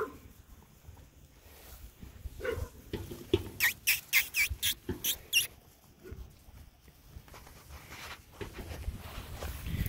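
Poodle puppies yipping during play: a quick run of about seven short, high squeaks, a little under a second and a half into the middle of the stretch, with a few fainter sounds around it.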